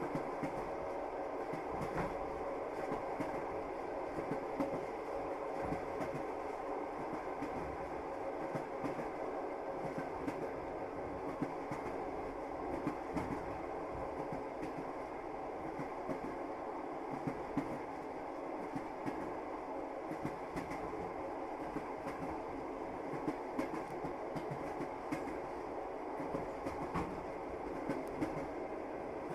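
A moving train: the wheels clack on the rails over a steady running rumble.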